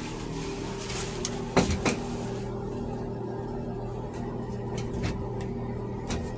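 Shower curtain rings clicking and knocking on the curtain rod as the curtain is put into place, twice sharply about one and a half seconds in and a few fainter ticks later, over a steady low hum.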